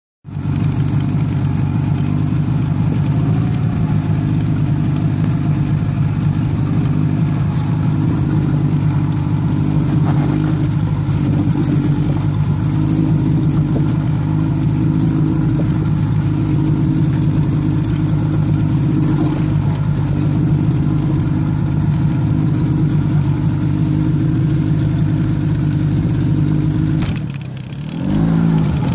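Yamaha 25DM outboard motor running steadily with the boat under way. Near the end the engine sound drops briefly, then its pitch rises again.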